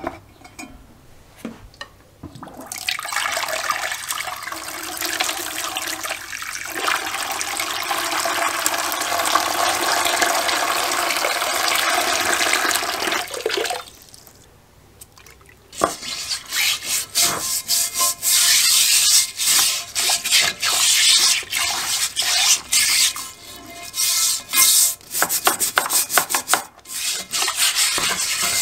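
A knock as a cast iron Dutch oven is set down in a plastic tub. Then a steady stream of liquid is poured in for about ten seconds. After a short pause, a hand sloshes and splashes through the liquid in the pot.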